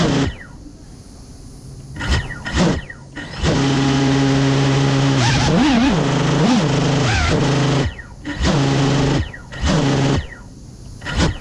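Motors of a Cinelog35 FPV cinewhoop spinning while it sits on the ground. Short sharp revs come early on and again in the last few seconds. In between, a steady idle hum runs for about four seconds, its pitch wobbling up and down as the throttle is nudged.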